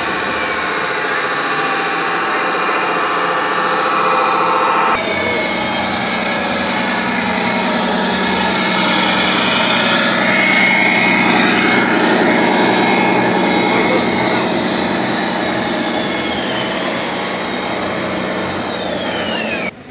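Steady engine-like drone with a crowd's chatter behind it; the sound changes abruptly about five seconds in.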